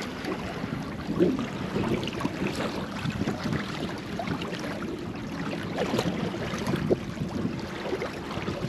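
Water lapping and sloshing against a small boat's hull, with wind on the microphone and a few faint clicks.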